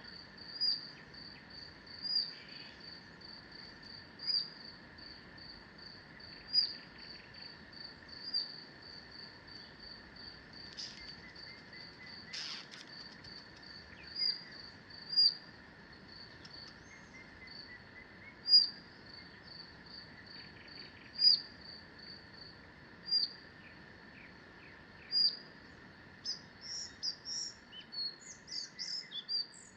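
Forest ambience of birds and insects: a high chirp repeats steadily several times a second, with louder chirps every couple of seconds over a faint steady insect hum. Near the end a bird's varied, quickly changing song comes in.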